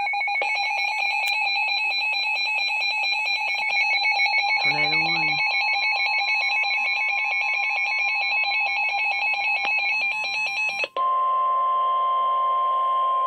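Weather radio emergency alert for a tornado warning: an alarm of several high tones pulsing rapidly and steadily, which about eleven seconds in switches abruptly to the single steady 1050 Hz NOAA Weather Radio warning tone.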